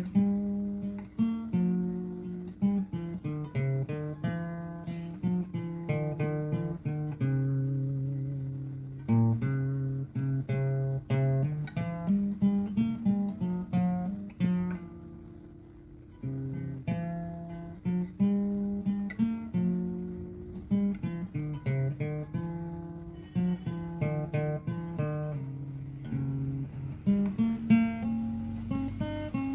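Background music of plucked acoustic guitar notes, with a brief lull about halfway through.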